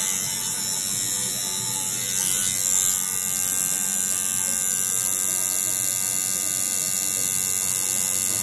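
Electric tattoo machine buzzing steadily while lining the outline of a tattoo into skin, a little louder from about two seconds in.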